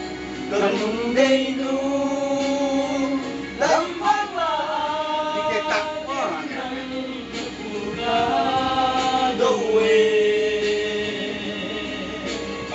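Music with singing: long held vocal notes that slide in pitch, over an instrumental backing.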